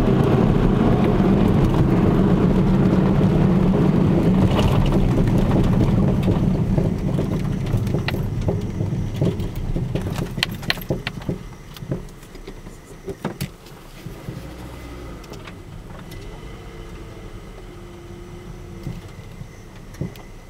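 Car driving, its road and running noise fading from about six seconds in, with a run of sharp knocks and clicks between about eight and thirteen seconds in: the abnormal noise from newly fitted front coilover suspension.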